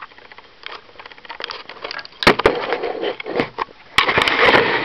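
Handling noise of a handheld digital camera being carried and set down: scattered clicks, two sharp knocks about two seconds in, then a louder scraping rustle near the end.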